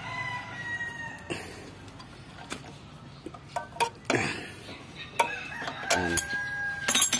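A rooster crowing twice, one held call at the start and another near the end. Between the calls come sharp metallic clicks of pliers turning a drum brake's shoe hold-down spring retainer.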